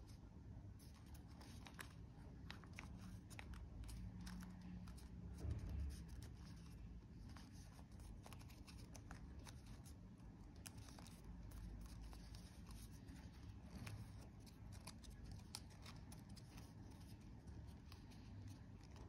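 Faint crinkling and rustling of folded origami paper being handled and pressed, with many small scattered clicks. A soft low thump about five and a half seconds in.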